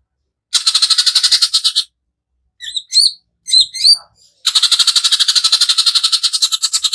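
Greater green leafbird (cucak ijo) singing its harsh 'tembakan kasar' bursts: a fast buzzy rattling trill, then a few short whistled notes that slide up and down, then another long rapid trill starting a little past halfway.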